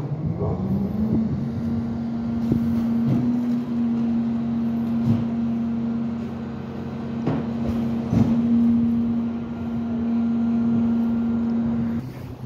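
Freightliner M2 trash truck's engine speeding up to a steady fast idle, with a few scattered metallic clanks. The engine drops back near the end. The raised engine speed is the throttle-up that drives the McNeilus packer's hydraulics.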